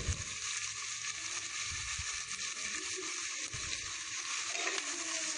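Chopped onions sizzling in hot oil in an aluminium pressure cooker: a steady hiss, with a few faint knocks of a steel ladle stirring them.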